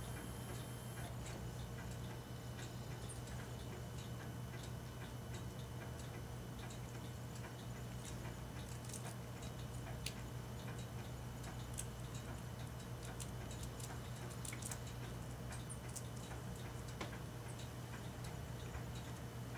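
A squirrel gnawing kernels off a corn cob: faint, irregular little clicks over a steady low hum.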